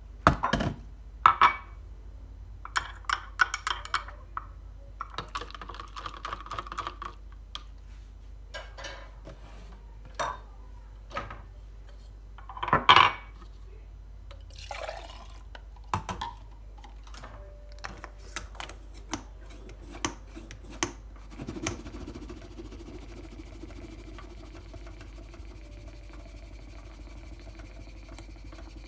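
Coffee-making handling sounds: a kettle and glassware knocked and set down on a stone counter, clinks, and liquid being poured into a glass French press. From about two-thirds of the way through, a steady low hum runs under it.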